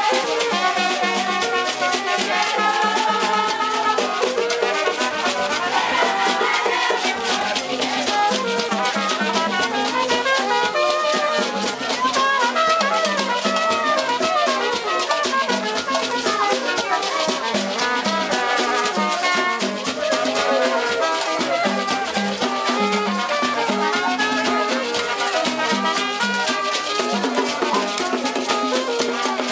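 Haitian rara band playing: drums and shaken rattles keep a dense, driving rhythm under horn-like melodic lines.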